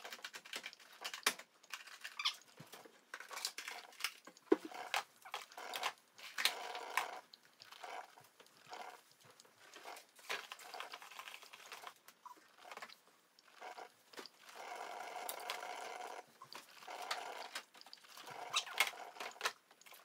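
Light kitchen handling noise: scattered clicks, taps and knocks as an egg carton and containers are moved about on a counter. A faint whining sound lasts about two seconds, a little past the middle.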